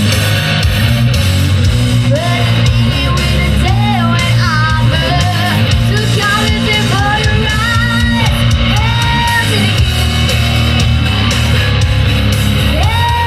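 Heavy metal music: an electric guitar plays a lead line of bent, sustained notes over steady drums and bass.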